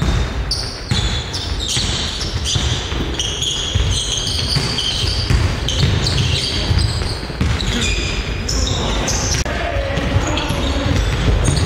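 Basketball being dribbled on a wooden gym floor, with sneakers squeaking in many short high chirps and players' voices calling out.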